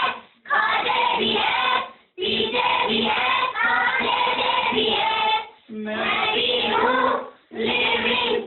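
A group of children singing in chorus, in sung phrases with brief breaks between them.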